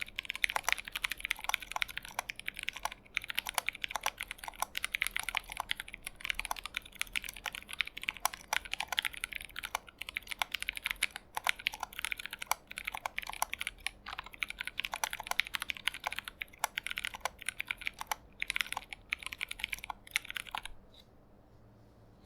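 Fast, steady typing on a custom mechanical keyboard fitted with lubed Durock T1 tactile switches and PBT cherry-profile keycaps in a stacked acrylic case, with only short pauses. The typing stops near the end.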